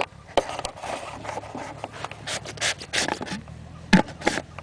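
Handling noise on a plastic PVC-pipe potato gun: scrapes, rubs and a run of short irregular knocks against the pipe as it is fumbled with after failing to fire, with the loudest knock about four seconds in.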